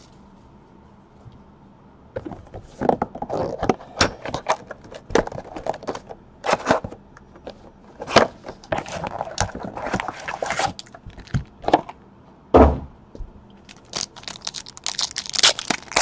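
Cardboard hobby box of Panini Certified football cards being opened and handled: scraping, rustling and clicking, with a sharp thump about three quarters through. Near the end comes the crinkle of a foil card pack being torn open.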